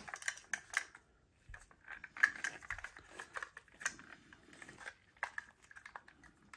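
Faint, irregular clicks and scrapes of a plastic Athearn Blue Box HO-scale locomotive shell being worked loose from its pins on the chassis by gloved hands. The sharpest click comes about two seconds in.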